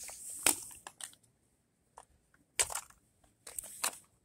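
Short crunching, scraping handling noises on gravel: a loud burst at the start with a sharp click about half a second in, then two shorter bursts later.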